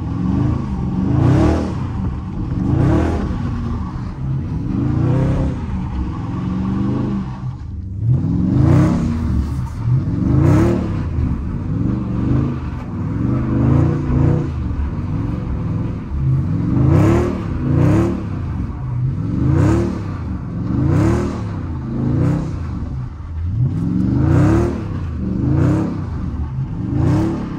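Dodge Charger Scat Pack's 392 HEMI V8 revving in repeated rising surges, heard from inside the cabin, with a short break about eight seconds in. The bursts of throttle spin the rear tyres on wet pavement as the car slides.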